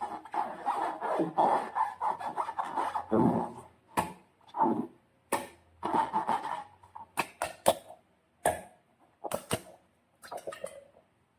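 Slime being squeezed and worked by hand, with sticky squelching and rubbing. After about four seconds this breaks up into scattered sharp clicks and short squishes.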